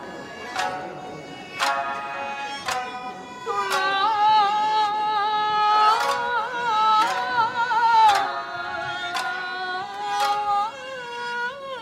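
Traditional Japanese folk music, of the kind played at the Owara Kaze no Bon festival. Sharp plucked string notes fall about once a second. A held, wavering melody line of voice or bowed fiddle comes in about a third of the way through and fades near two-thirds, then returns more softly near the end.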